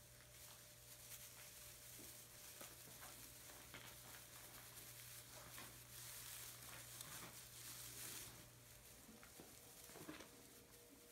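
Faint rustling and crackling of dry straw bedding as puppies shuffle and scratch on it, with scattered small clicks.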